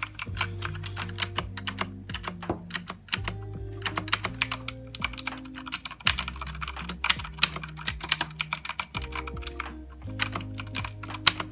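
Clicky blue-switch mechanical keyboard (Blackweb) typed on rapidly, the keys clacking in quick, irregular runs. Background music with low held notes plays underneath.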